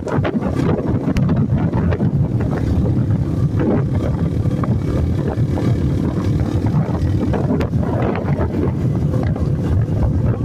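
Wind buffeting the microphone over a steady low rumble, with scattered faint clicks.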